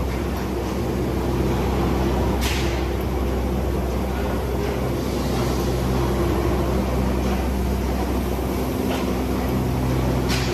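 Steady drone of paint-booth machinery while LPG cylinders are spray-painted, a low hum under a continuous hiss. Two short sharper hisses stand out, one about two and a half seconds in and one near the end.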